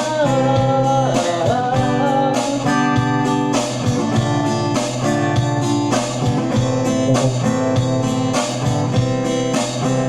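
Instrumental break in a song, led by strummed acoustic guitar over a steady rhythm, with a gliding melody line in the first two seconds.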